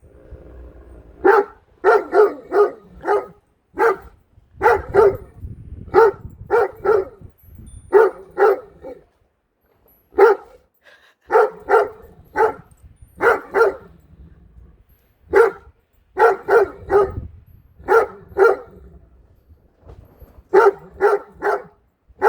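Great Dane barking over and over, short deep barks mostly in quick runs of two or three with brief pauses between runs.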